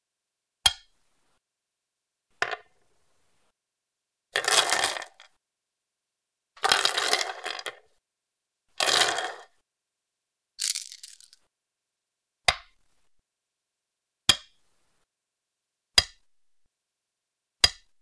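Go stones: two sharp single clicks of a stone set down on a wooden board, then four longer rattling clatters of a handful of stones jumbled together, the last one lighter. Four more single clicks follow, spaced a little under two seconds apart.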